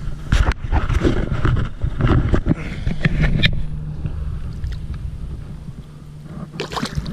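Rustling and knocking of body movement against a chest-mounted action camera as a bass is lowered into pond water by hand, dying down after about three and a half seconds into quieter water movement as the fish is held in the water and let go.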